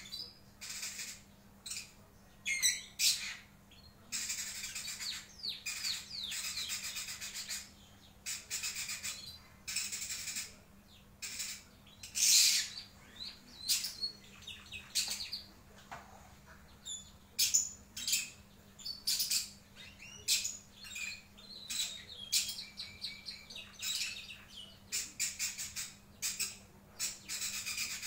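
Lovebird singing a varied, chattering song: many short, squeaky high chirps broken up by several longer runs of rapid twittering. It has no long trill (ngekek) and no ticking (ngetik).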